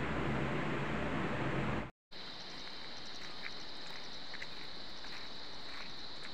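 A steady low hum of a room fan for about two seconds, then a sudden cut to a steady high, even drone of insects in the forest, with a few faint ticks.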